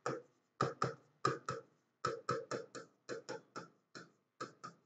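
A pen writing on a board: a quick, irregular run of about twenty short strokes and taps as words are written out by hand.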